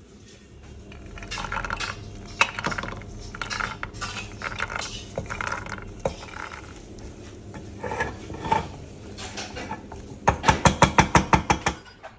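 Clattering and scraping in a stainless steel saucepan as a wooden stirrer works through caramelizing sugar and whole roasted hazelnuts, with a quick run of about ten sharp knocks near the end.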